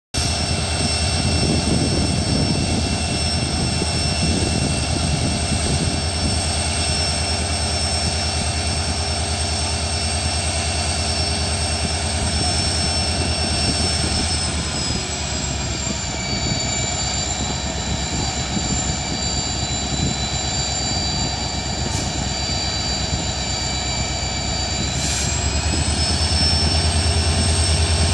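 Indian Railways EMD diesel locomotive's engine running as it slowly pulls a train out of the station: a deep pulsing throb with a steady high whine above it. About halfway through the whine drops in pitch. A few seconds before the end it rises again and the engine gets louder.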